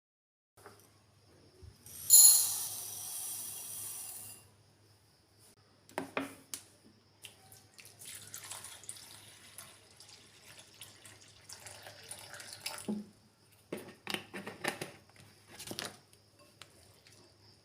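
A tap running into a sink for about two seconds, then scattered splashes, drips and knocks as something is washed by hand.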